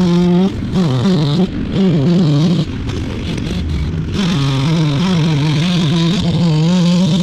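An engine running and revving, its pitch rising and falling over and over, with a short lull about three seconds in.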